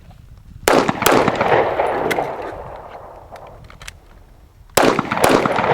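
Two SIG Sauer pistol shots fired in quick succession about a second in. After a pause of nearly four seconds for the magazine reload, two more shots come near the end, each shot echoing.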